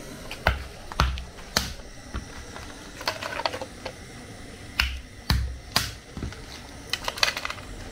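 A series of sharp knocks and clicks at uneven spacing: three spaced knocks in the first two seconds, a patter of lighter clicks around the middle, three more knocks about two-thirds through, and a quick run of clicks near the end.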